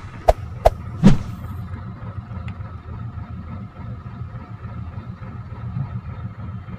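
Three sharp clicks in the first second or so, then a truck engine idling steadily, heard from inside the cab.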